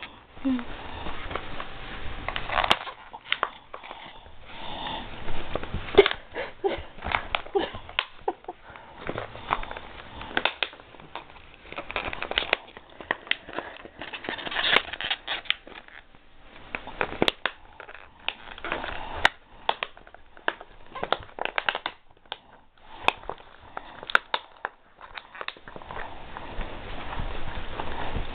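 Pit bull puppy sniffing and snuffling as it mouths a plush toy, with rustling of the blanket under it: many short, irregular sniffs and scuffs.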